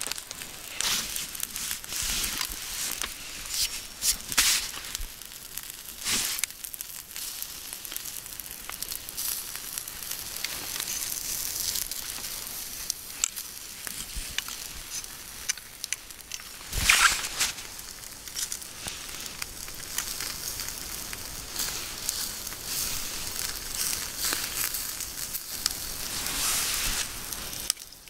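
Sirloin steaks sizzling directly on glowing wood embers, with a steady hiss and frequent crackles and pops from the coals. There is one louder crack about 17 seconds in.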